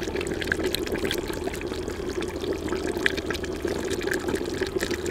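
Chicken sizzling and bubbling in a clay handi, a steady hiss with many small crackles, as it starts to fry in freshly added cooking oil with its cooking liquid nearly boiled off.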